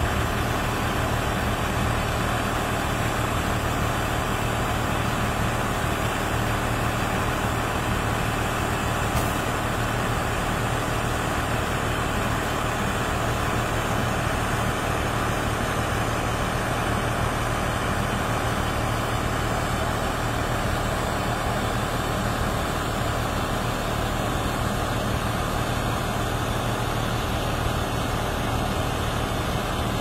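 Rice combine harvester's diesel engine and threshing machinery running steadily at constant speed.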